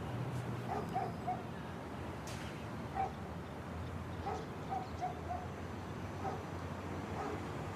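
Dog barking in a string of short yelps, well back in the mix, over a steady low rumble of background noise.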